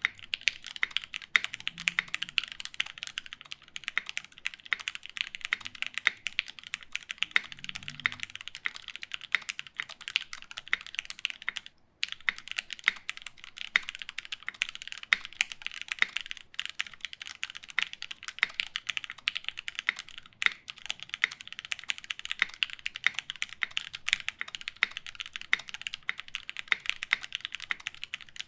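Continuous fast typing on a Taichi TKL mechanical keyboard with lubed Gateron Black KS-3 linear switches, GMK keycaps and an FR4 plate: a dense stream of key strokes, with a brief break near the middle.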